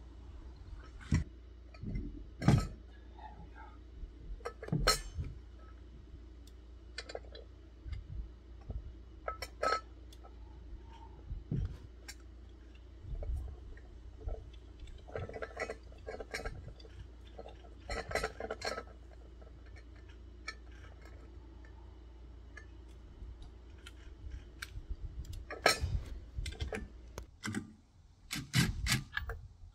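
Irregular metallic clinks and taps of lug nuts and hand tools being handled at a travel trailer's wheel hub, with a quick run of clinks near the end. A steady low hum underneath stops shortly before the end.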